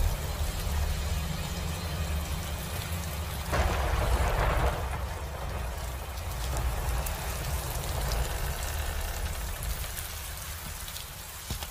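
Steady rain falling over a deep low rumble, with a louder surge of rain noise about three and a half seconds in that lasts around a second.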